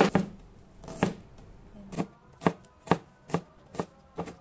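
Kitchen knife chopping a scallion on a bamboo cutting board: sharp single knocks of the blade on the board, first slow, then settling to about two a second.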